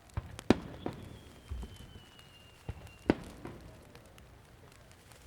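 Starmine fireworks volley: about six sharp bangs of shells bursting, the loudest near the start and about three seconds in. Between them a whistle firework's thin, high whistle slides slowly down in pitch for about two seconds.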